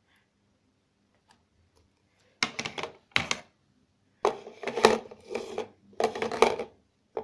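Slime being handled and squished, giving bursts of wet crackling and clicking. There are three bursts, starting about two and a half seconds in.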